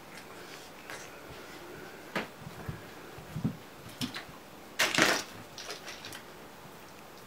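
Two raccoons and a fluffy puppy tussling on a carpet: scattered soft knocks and rustles of paws and bodies, with a louder burst of scuffling about five seconds in.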